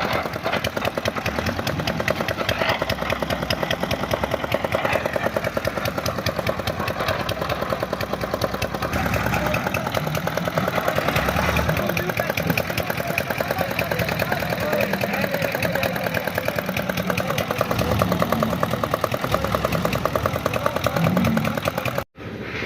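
Engine-driven concrete mixer running steadily at work, with a rapid, even engine beat. The sound cuts out abruptly for a moment near the end.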